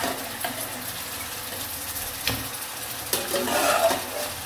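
Onion-and-spice masala sizzling in a wok as boiled mutton pieces are ladled in from a pot of stock. The ladle knocks against the pot a couple of times and stock splashes.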